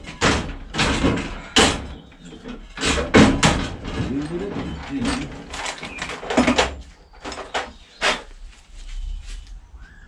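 Metal tools and parts clattering and knocking in a run of irregular sharp impacts as someone rummages through workshop storage for a pair of V-blocks.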